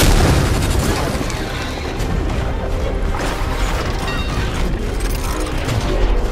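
Cartoon sound effects of a whirlwind rushing steadily with a heavy low rumble, mixed with the mechanical clanking of walking robots, over background music.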